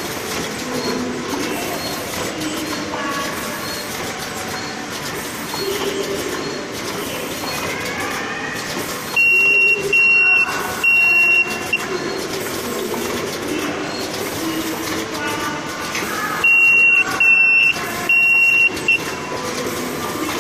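Automatic cartoning machine running with a steady mechanical clatter and scattered short chirps, broken twice by a run of three loud, high electronic beeps.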